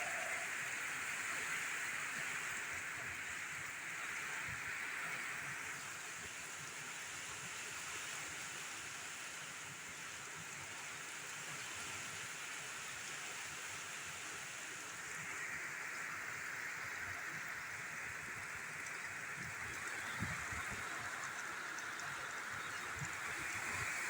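Heavy rain falling steadily, a dense even hiss with no let-up, with a few faint low thumps near the end.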